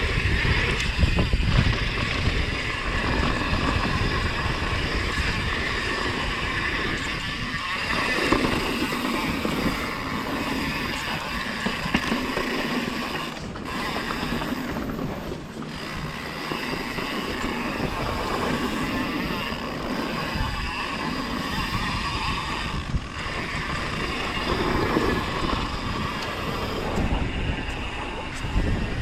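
Mountain bike ridden down a dirt bike-park trail: steady rolling and rattling noise of the bike over the ground with the freewheel hub ticking, and wind on the microphone.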